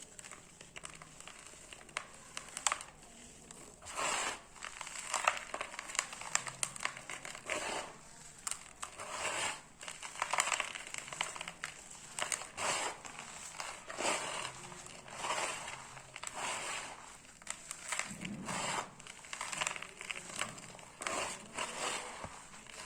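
Dry pure-cement blocks crunching and crumbling as they are crushed, in a string of gritty crunches about once a second with sharp little cracks in between.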